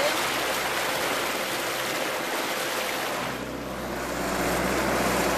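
Brown flood water rushing and surging against the sides of a Land Rover 90 as it wades through deep water. The rushing eases briefly about three and a half seconds in, and the diesel engine's low steady running comes through under the water noise.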